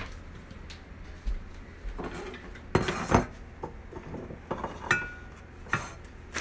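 Bowls and dishes knocking and clinking on a kitchen counter as they are set down and moved: several separate knocks, one with a brief ring about five seconds in.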